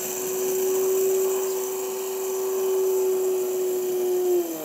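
KitchenAid countertop blender running at a steady high speed, pulverizing blue cheese frozen with liquid nitrogen into a fine powder. Near the end it is switched off, and its hum drops in pitch as the motor spins down.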